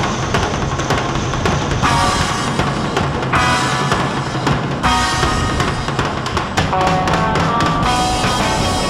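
Background music with a steady drum-kit beat and pitched instrumental notes over it.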